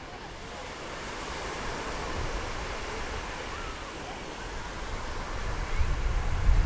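Small surf washing onto a sandy beach, with faint voices of people in the water and on the sand. Near the end a low rumble swells up and becomes the loudest sound.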